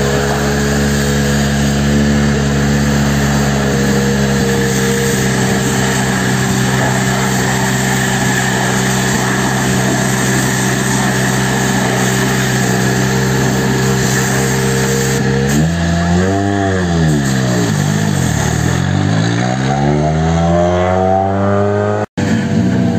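Pressure washer running at a steady pitch while its spray hisses against a rally car's bodywork. About two-thirds of the way in, a car engine takes over, its pitch falling and then rising again over several seconds.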